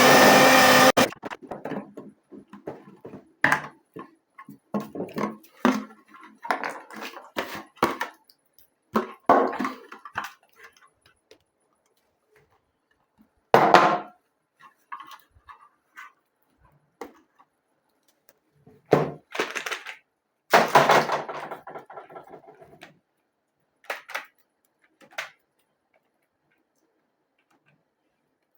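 Hand work on small parts and a casing: irregular knocks, taps and clatter of tools and components being handled and fitted. A brief steady whir is heard in the first second.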